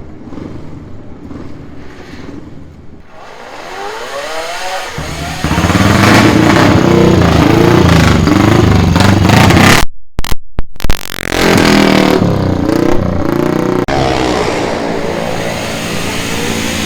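Classic AWO and Simson racing motorcycles, East German four-stroke singles, revving hard as they come up close. The engine sound rises in pitch and gets loud about five seconds in, with bending pitch as the bikes rev and pass. The audio drops out briefly a few times about ten seconds in.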